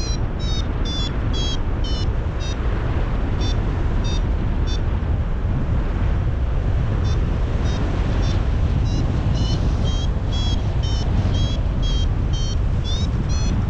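Paragliding variometer beeping in a steady run of short high beeps, signalling that the glider is climbing in lift; the beeps stop for a couple of seconds near the middle and then resume, quicker and rising in pitch near the end. Strong wind rushes over the microphone underneath.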